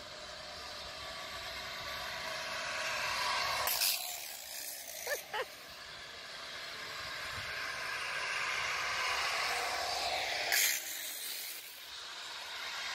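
Zip-line trolley pulleys hissing along a steel cable, the whir building as riders come closer. A sharp swish breaks it about four seconds in, the hiss builds again to a louder swish near the end, and a couple of brief high squeaks come about five seconds in.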